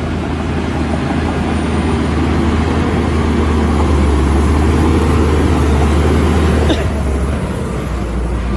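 Shantui bulldozer's diesel engine running steadily under load, growing a little louder over several seconds, then easing off suddenly near the end with a short sharp click.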